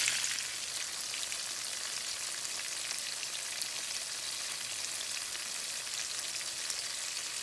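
Batter-coated shrimp frying in hot oil and butter in a pan: a steady sizzle with fine crackling.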